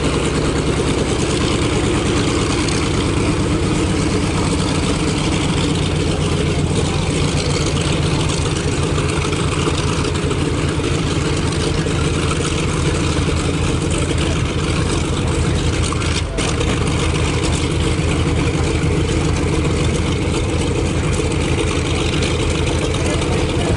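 Douglas A-1 Skyraider's Wright R-3350 eighteen-cylinder radial engine idling on the ground, a steady low rumble of rapid firing pulses.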